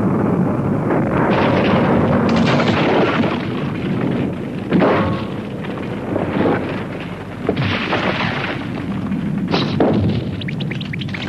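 Cartoon sound effect of a volcano about to erupt: a continuous heavy rumble broken by a series of loud blasts and crashes every second or two.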